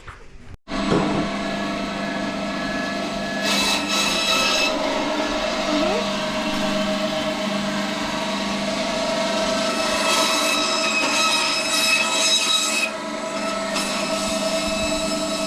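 Electric bone saw running steadily with a constant motor hum, as it cuts through pork. It starts suddenly just under a second in and sounds harsher in stretches about four and ten seconds in.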